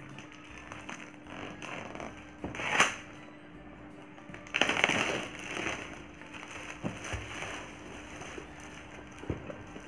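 Clear plastic shrink wrap crinkling and tearing as it is peeled off a cardboard box, with loud crackles about 3 s and 5 s in. A few light knocks of the box on the table come near the end.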